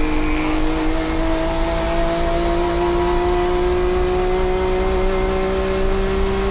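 Nissan Skyline R32 GT-R Group A race car's RB26DETT twin-turbo straight-six at full throttle, pulling hard through one long gear with its pitch rising slowly and steadily.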